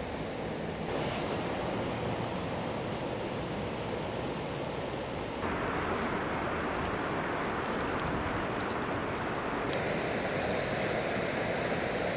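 Steady rushing noise of river water and wind on the microphone. It jumps louder abruptly about a second in and again about halfway, and a few faint, short high chirps come through in the second half.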